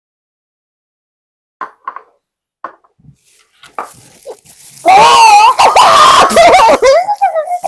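A few faint small noises, then a loud, wordless vocal outburst wavering in pitch, starting about five seconds in and lasting about two and a half seconds: a reaction to tasting clam juice.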